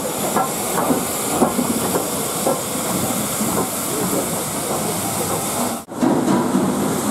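Steady hiss of steam escaping around the cylinders and wheels of LNER Thompson K1 2-6-0 steam locomotive No. 62005, with a few faint light knocks. The sound drops out briefly near the end.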